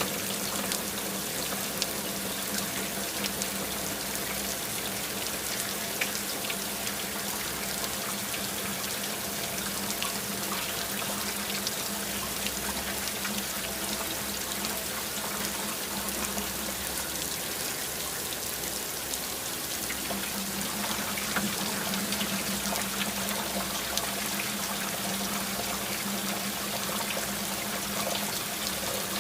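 Water pouring and trickling steadily, with a low steady hum underneath that fades for a few seconds past the middle.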